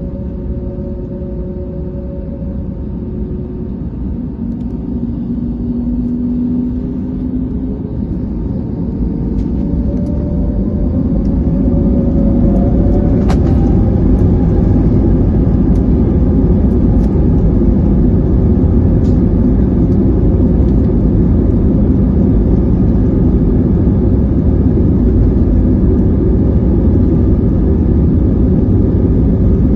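Airbus A320neo's Pratt & Whitney PW1100G geared turbofans spooling up for take-off, heard from inside the cabin. A whine rises in pitch and the noise builds over the first dozen seconds into a steady loud rumble as the aircraft accelerates down the runway, with a few faint clicks along the way.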